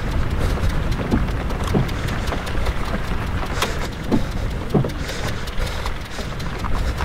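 Steady low rumble of a running vehicle, with scattered crackles and a few short falling tones over it.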